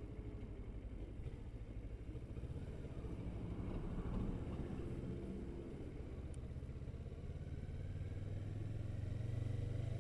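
Motorcycle engine running at low speed, heard as a low rumble with a steady hum that grows louder near the end.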